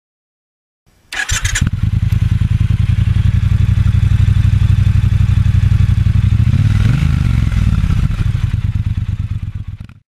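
Motorcycle engine starting about a second in, then idling with a steady even beat and a slight blip around seven seconds, fading out near the end.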